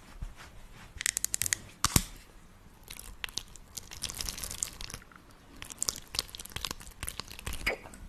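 Close-up crinkling and crackling of skincare being handled: a paper face wipe rubbed over the face and a spatula scooping crumbly pink scrub out of a plastic jar. The sound comes in quick clusters of sharp crackles, with short quieter gaps between them.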